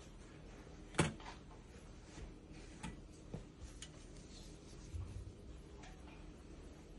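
A fluted metal tart pan set down on a wire cooling rack: one sharp clank about a second in, then a few lighter clicks and taps as it is settled and the oven mitt pulled away.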